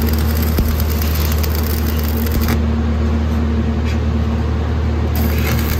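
Stick (shielded metal arc) welding on steel plate: the arc crackles and hisses, breaks off about halfway through, and is struck again near the end. A steady low hum runs underneath.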